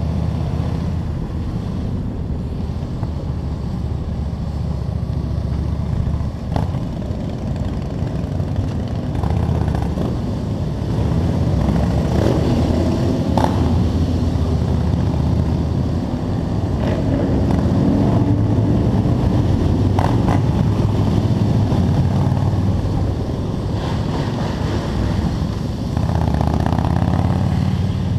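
Motorcycle engine running under way with wind rush on the helmet-mounted microphone; the engine note rises with throttle, loudest from about two-thirds of the way through and again near the end.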